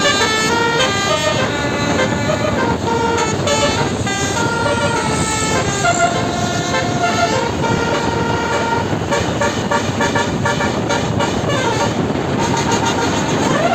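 Indonesian 'telolet' bus horn, a 12-note Basuri horn set, playing a running tune of short notes that step up and down in pitch, over steady background noise.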